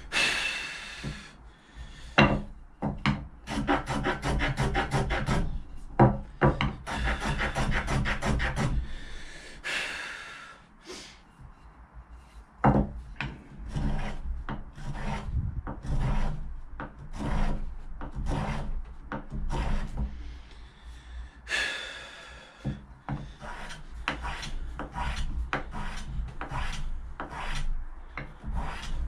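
Hand tool scraping along the edges of a small hardwood block to cut chamfers, in runs of quick strokes broken by short pauses, with a few sharp knocks as the piece is set down or turned.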